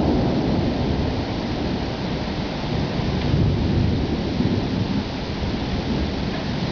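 Thunderstorm: a continuous low rumble of thunder with the hiss of rain over it.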